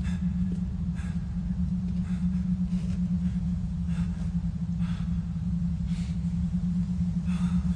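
A steady low rumbling drone with faint, soft clicks about once a second on top.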